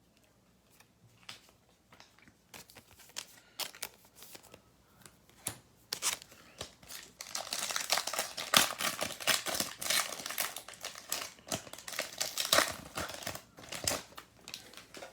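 A trading-card pack's foil wrapper being torn open and crinkled by hand. It starts with scattered light handling clicks, then the crinkling grows dense and louder about six seconds in before dying away near the end.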